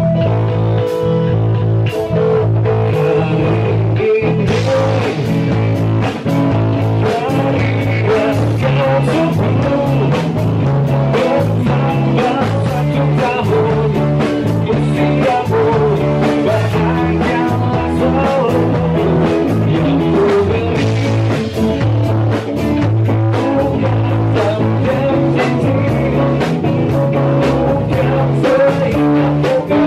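Rock band playing live: a drum kit keeping a steady beat under an electric bass line and guitar, with a male voice singing.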